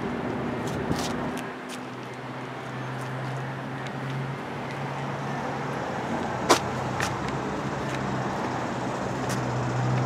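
2014 Hyundai Sonata's engine idling, a steady low hum that grows a little louder near the end, with a sharp click about six and a half seconds in.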